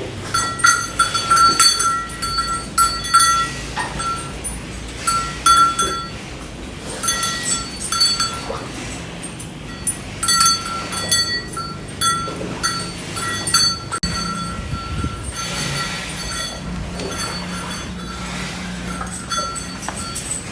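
Metal cattle bell clanking in irregular runs of quick strikes, thinning out in the second half over a low steady hum.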